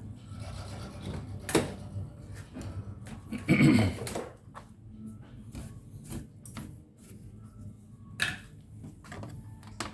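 Scattered clicks and knocks of hard objects being handled, with a louder, longer clatter about three and a half seconds in and another sharp knock a little after eight seconds, over a faint low hum.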